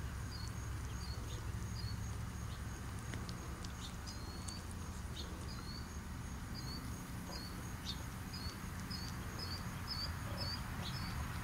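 A small bird chirping over and over, short high notes about two a second that come closer together near the end, over a steady low hum.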